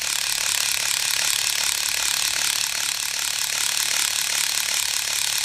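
Hair-twisting gadget's small geared motor running steadily, its plastic gears whirring and rattling as it twists two clipped-in sections of hair into a rope twist.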